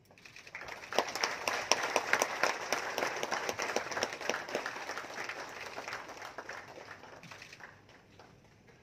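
Audience applauding. The clapping swells up within the first second, holds strong for a few seconds, then dies away near the end.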